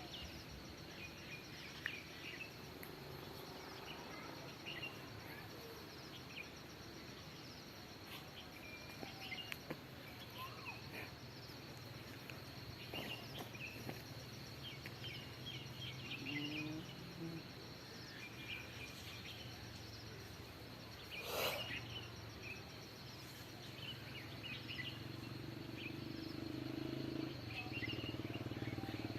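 Outdoor nature ambience: birds chirping in short, scattered calls throughout, over a steady high-pitched whine and a low hum. One brief, louder sound stands out about two-thirds of the way through.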